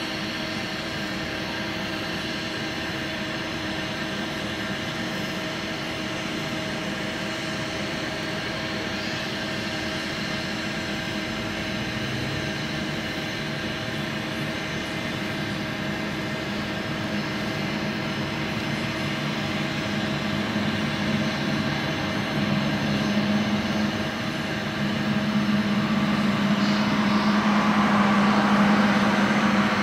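ATR 72-202 twin-turboprop airliner on final approach, its engines and propellers making a steady droning hum that grows louder as it nears, with a rising rush of noise in the last few seconds.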